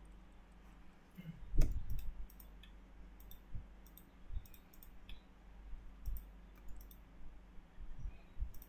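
Scattered computer mouse clicks at an irregular pace, with one louder, low thump about one and a half seconds in.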